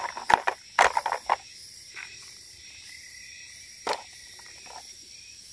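Hard plastic toy vehicles clicking and knocking as they are set into the plastic bed of a toy dump truck, a few separate knocks over a steady high insect drone.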